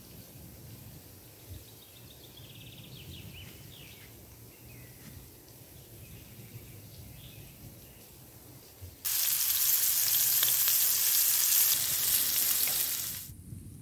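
Neck steaks sizzling loudly in a frying pan over a small fire, starting suddenly about nine seconds in and cutting off about four seconds later. Before that only a quiet forest background with a few faint bird chirps.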